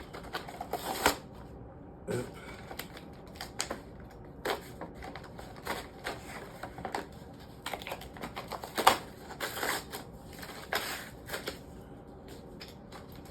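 A toy's retail box being opened and unpacked by hand: irregular clicks, taps and rustles of the packaging, with a sharper click about a second in and another near nine seconds in.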